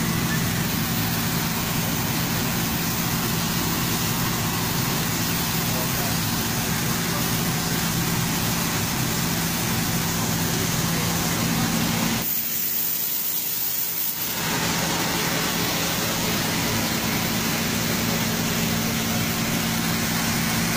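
A fire hose nozzle sprays a steady, hissing fog of water out of a smoke-filled doorway, working as hydraulic ventilation to pull the fire gases out. Under it runs a steady engine hum, which cuts out for about two seconds past the middle.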